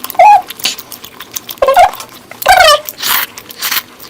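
Close-miked wet chewing and slurping, with sharp lip-smacking clicks and several short squeaky slurps.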